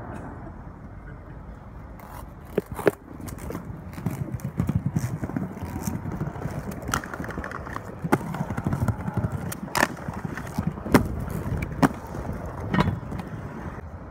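Aggressive inline skates rolling over paving stones with a rough rumble, broken by several sharp clacks as the skates hit the ledge and the pavement, the loudest near the end.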